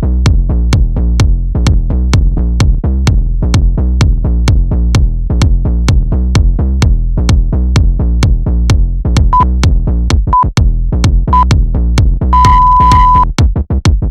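Electronic dance music with a steady, fast drum-machine beat. Near the end, an interval timer counts down over it with three short beeps a second apart, then one longer beep, marking the switch between work and rest.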